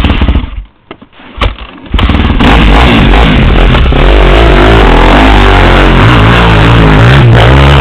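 A few short knocks, then about two seconds in an ATV engine comes up loud and keeps running under load as it rides off, its pitch wavering with the throttle.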